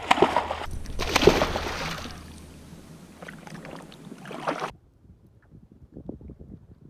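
Giant trevally splashing back into the sea as it is released beside a kayak: two loud splashes in the first two seconds, then water sloshing that fades. About two-thirds of the way in, the sound cuts to faint water lapping.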